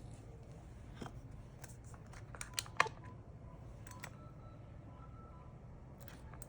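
Scattered small clicks and taps of tools and parts being handled while an iPhone is worked on at a repair bench, the sharpest click a little under three seconds in, over a low steady hum.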